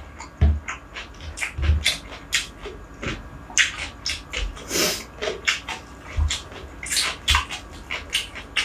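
Close-miked eating by hand: fingers squeezing and mixing cooked rice on a tray, with wet mouth clicks from chewing. It comes as a dense string of short crackles and smacks, with a few soft low thumps.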